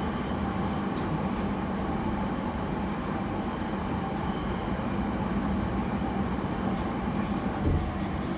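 Running noise of a JR East E231 series 0 commuter train heard inside the passenger car: a steady rumble of wheels on rails while under way. A low thump sounds near the end.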